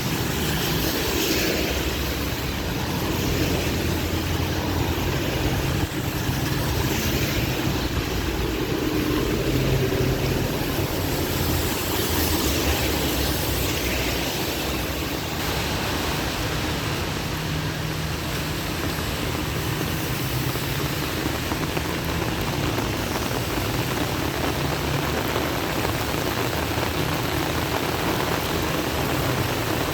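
Heavy rain falling steadily, with the low hum of road traffic passing underneath.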